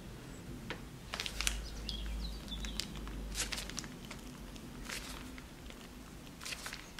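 Cake batter being piped from a piping bag into a silicone loaf mold on a metal baking tray: a few short rustles and squishes of the bag and batter over a low steady hum.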